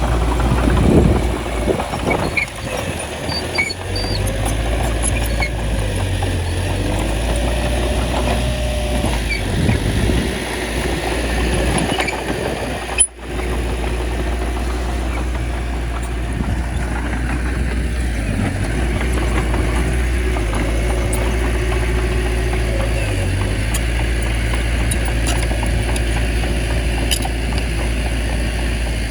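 Crawler bulldozer's diesel engine running steadily under load while pushing soil, with a few light metallic clinks. The sound cuts out for an instant about halfway through.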